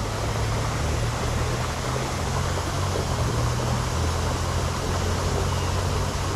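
Steady rushing of flowing water at a koi pond, with a low steady hum underneath.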